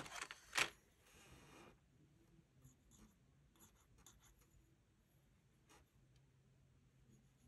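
A small hand file scraping on a plastic kit part in a few short strokes over the first couple of seconds, smoothing the spot where it was cut from the sprue, then only faint clicks of handling.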